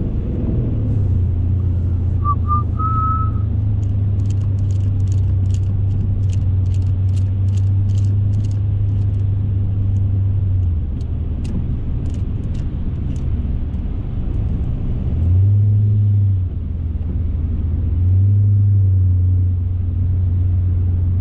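Car engine and road noise heard from inside the cabin: a steady low drone that grows louder twice in the last six seconds. A short electronic chime sounds about two seconds in, and a run of light clicks comes through the middle.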